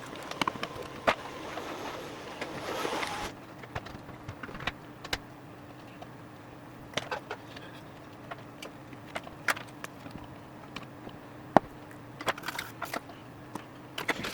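Scattered sharp clicks and taps of hand tools working on a circuit board during desoldering. A steady hiss runs for the first three seconds and cuts off. A faint steady hum sits underneath.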